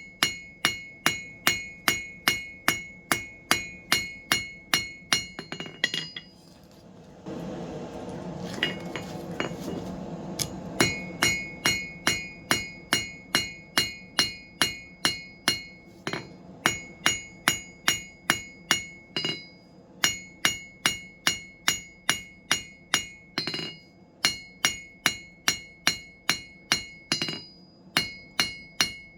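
Hand hammer striking steel on an anvil in a steady rhythm, about two to three blows a second, each blow leaving a bright metallic ring. About a quarter of the way in, the hammering stops for a few seconds while a steady rushing noise is heard, then the blows resume.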